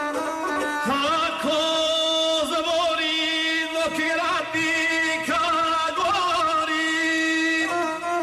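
Gusle, the one-stringed bowed folk fiddle, played with a nasal, wavering melody over a steady held note, as accompaniment to a South Slavic epic song.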